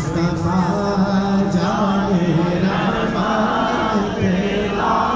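Men singing a naat, an Urdu devotional poem in praise of the Prophet, into microphones, unaccompanied and chant-like, with long drawn-out melodic lines over a steady low held note.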